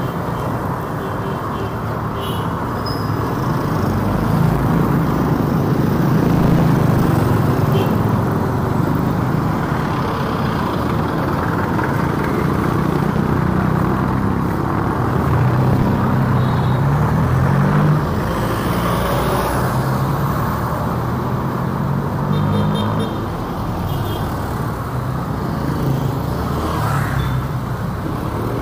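Steady road traffic: cars and other motor vehicles running and passing close by, their engine noise swelling and fading over several seconds at a time.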